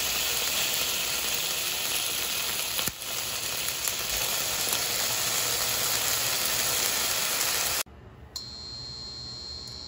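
A beef burger patty sizzling steadily in a stainless steel frying pan, with one sharp knock of the spatula against the pan about three seconds in. The sizzle cuts off suddenly near the end, leaving a quiet hum.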